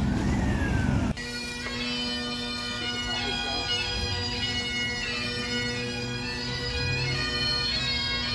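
A siren wailing up and down from a small novelty fire-engine ride, cut off abruptly about a second in. Then bagpipes playing, a steady drone under a moving chanter melody.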